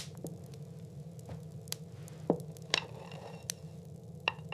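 Wood fire crackling: sharp pops and snaps at irregular moments over a low steady rumble.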